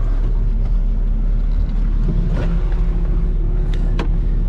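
Heavy farm machine's engine running steadily, heard from inside its cab as a low rumble. A few sharp clicks sound about halfway through and again shortly before the end.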